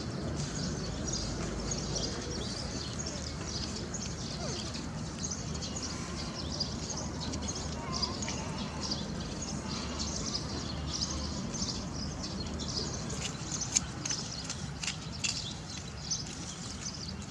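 Outdoor background: a steady low rumble with dense high chirping throughout, and a few sharp clicks in the last few seconds.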